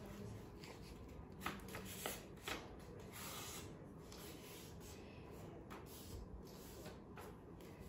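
Faint rustling of a sheet of paper being folded and creased by hand, with a few short crackles scattered through it.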